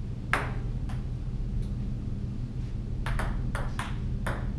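Plastic table tennis ball clicking off paddles and the table: one sharp hit about a third of a second in, two fainter clicks after it, then a quick run of clicks in the last second and a half. A steady low hum lies underneath.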